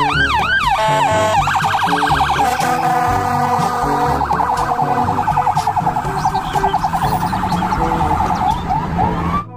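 Electronic siren of a toy police ambulance car. It starts with rising whoops repeating about twice a second, drops in pitch about a second in, then switches to a fast warbling yelp that stops just before the end. Background music plays underneath.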